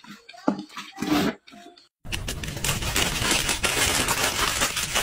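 A stiff paper fruit bag crinkling and rustling as hands open and fold it, a dense crackle that starts abruptly about two seconds in, after a few brief voice sounds.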